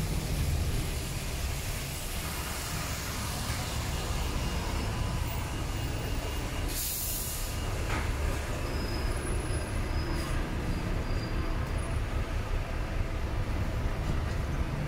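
Traffic on a busy city street: a steady low rumble of passing vehicles, with a short hiss about seven seconds in and a few faint high squeals a few seconds later.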